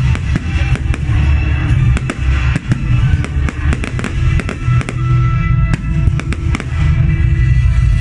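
Fireworks shells bursting and crackling, with many sharp bangs and pops coming fast and irregularly, over loud music with a heavy bass.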